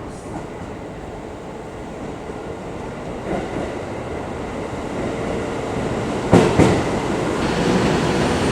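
Electric commuter train pulling in at the platform, its running noise growing steadily louder, with two sharp clacks close together about six seconds in.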